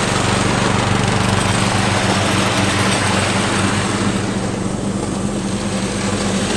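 Ride-on lawn mower engine running steadily while mowing, a constant low hum with a hiss over it that eases off about four seconds in.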